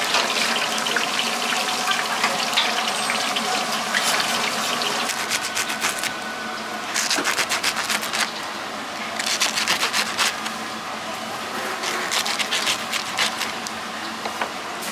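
Hot oil in a deep fryer sizzling steadily for about the first six seconds. Then a knife cuts through crisp, batter-fried green chili peppers on a cutting board, in three spells of quick crackly crunching.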